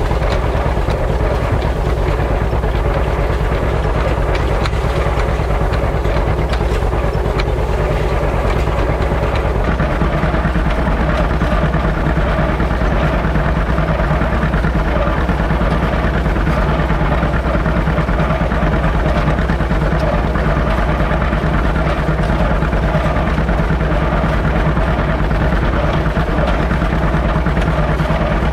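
Tractor engine running steadily under load, heard close up while pulling a hay rake; its tone shifts slightly about ten seconds in.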